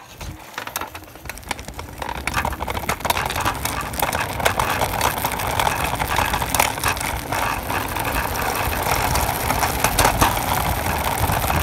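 Small wheels of a low ride-on vehicle rolling fast over paving stones and asphalt, with steady rumbling noise, wind and many small rattling knocks. The noise builds over the first two to three seconds, then holds steady.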